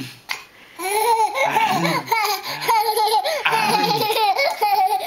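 Toddler laughing in repeated high-pitched bouts, starting about a second in.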